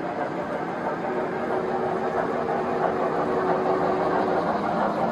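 Three-rail O gauge model trains running on the layout: a steady rumble of wheels on track with motor hum, growing slightly louder. A faint steady tone comes in about a second in and stops near the end.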